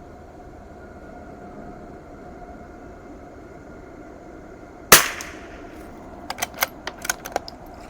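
A single shot from a CZ 452 bolt-action .22 rimfire rifle about five seconds in: one sharp crack with a short trailing echo. About a second and a half later comes a quick run of small metallic clicks, the bolt being worked to eject the case and chamber the next round.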